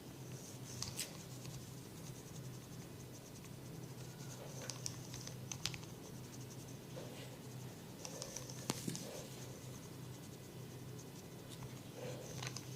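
Hair crackling during a head massage: fingers rubbing and tugging hair close to the microphone make dry, scratchy crackles. These come in about four bursts, a few with sharp clicks, over a faint steady hum.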